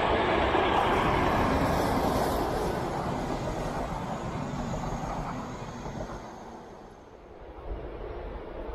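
Diesel locomotive hauling double-deck passenger coaches past at close range: engine and wheels on the rails loudest at the start, then the coaches rolling by and fading away over about six seconds.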